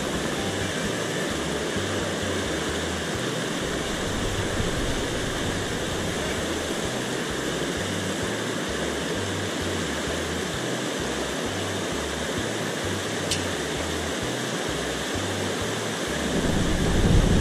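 Steady rush of a mountain stream's flowing water, an even hiss with no break. A low rumble swells near the end.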